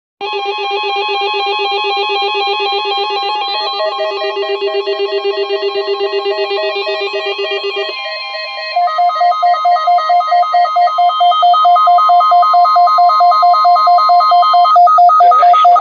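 Electronic synthesized tune of fast trilling notes, like a ringtone, stepping up in pitch about four seconds in and again about eight seconds in, and getting louder in its second half.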